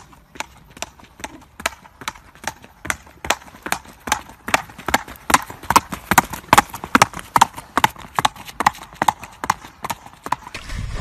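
Horse's hooves clip-clopping on asphalt at a brisk trot: a quick, even beat of sharp strikes, about four a second. It grows louder towards the middle and eases off again, stopping just before the end.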